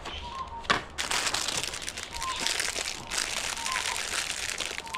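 Plastic packaging crinkling and rustling as a bag of small plastic glue tabs from a dent repair kit is handled, a dense crackling starting about a second in.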